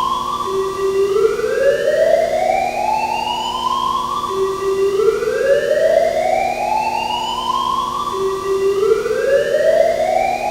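Arena fire alarm sounding its evacuation tone: a slow whoop that rises from low to high over about three seconds, then drops back and starts again, about three times.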